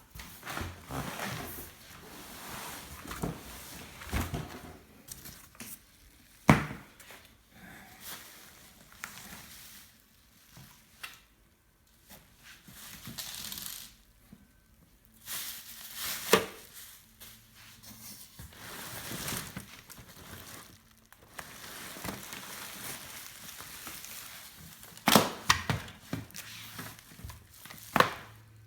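Parcel packaging being unpacked by hand: crinkling and rustling of wrapping material, with tearing, and several sharp knocks and clacks as things are moved about.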